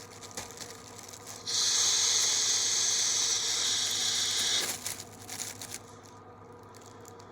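Steady hiss of air and vapor rushing through the valve of a Volcano Hybrid's filled vapor bag for about three seconds, cutting off sharply, followed by faint crinkling of the bag.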